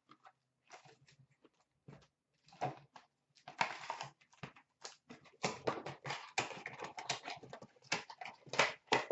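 Hockey card pack wrappers crinkling and tearing as a pack is opened and the cards handled, in a string of short irregular rustles that come thicker in the second half.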